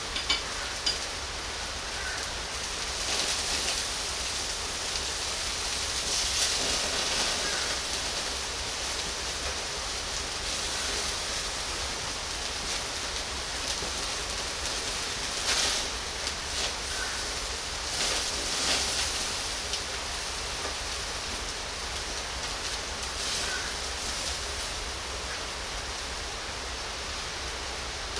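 Pork belly sizzling over a charcoal grill: a steady hiss with scattered small pops and brief louder swells.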